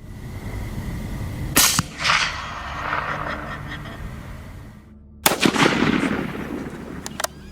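Two gunshots about four seconds apart during a night hog hunt, each followed by a long noisy tail, then two faint sharp cracks near the end.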